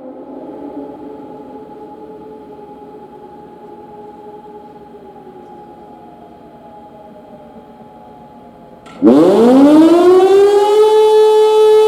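Pintsch Bamag high-performance siren (HLS) at a pause: a faint steady tone lingers for about nine seconds. Then the siren starts up again, its howl rising fast in pitch over about two seconds and levelling off into a loud, steady tone. Steady tones separated by pauses are the pattern of the fire-alarm signal.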